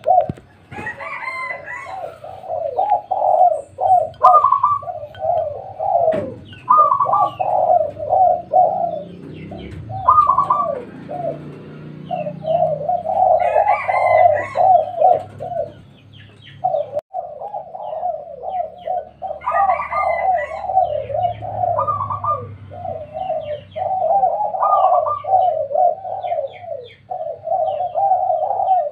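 Spotted doves cooing over and over, their phrases overlapping almost without pause, with a brief lull about two-thirds of the way through.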